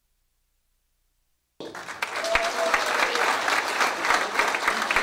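Near silence, then about a second and a half in, an audience's applause starts abruptly: many hands clapping together.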